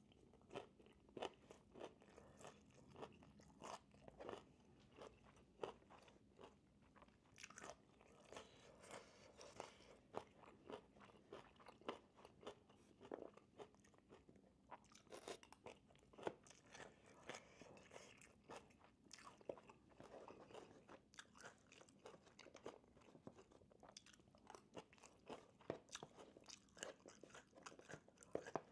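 A person chewing and crunching food in a quiet run of short smacks and clicks, several a second.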